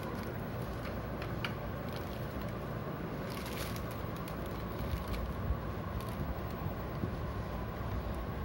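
A steady low rumble, with a few light clicks and a brief rustle as a glass digital bathroom scale is handled.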